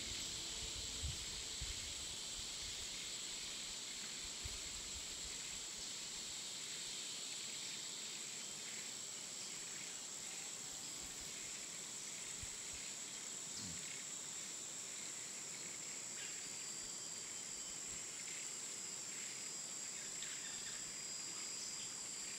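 Faint, steady insect chorus with an even high-pitched drone, like crickets, and a few soft low knocks.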